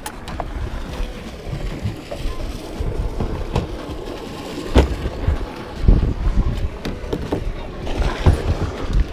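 Wind buffeting the microphone in uneven gusts, with a few sharp knocks and thumps about five and six seconds in.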